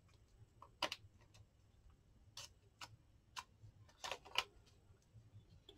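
Faint paper handling: a handful of short, irregular crinkles and clicks as paper and card are folded and pressed down by hand.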